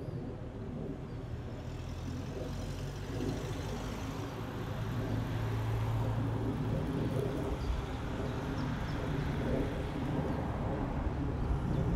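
A motor vehicle's engine running steadily, a low hum that swells for a moment about five seconds in, over a general wash of outdoor noise.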